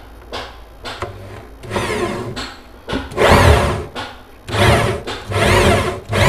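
Corded electric drill with a 10 mm bit boring up into a wooden wardrobe panel to make the bolt hole for a cupboard lock. It is run in repeated trigger bursts, the motor speeding up and winding down each time: short blips at first, then longer runs from about two seconds in.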